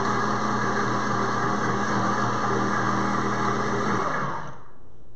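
Pampered Chef Deluxe Cooking Blender running at full speed, blending ice with strawberry margarita mix into a frozen drink, then spinning down and stopping about four seconds in.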